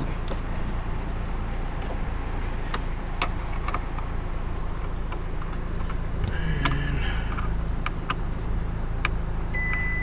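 Steady low vehicle rumble with scattered small clicks of a hand tool as the steering wheel's centre bolt is tightened. Near the end, one long electronic warning beep from the car.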